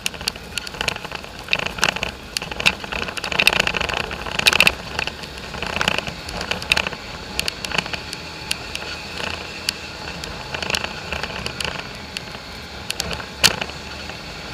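Polaris four-wheeler driving along a rough dirt trail: the engine runs steadily beneath frequent irregular sharp clicks, knocks and rattles from the bumpy ride.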